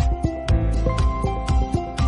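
Outro background music with a steady beat and sustained melodic notes.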